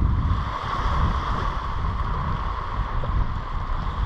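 Wind buffeting the microphone in uneven low rumbles over a steady rushing of the sea against the rocks.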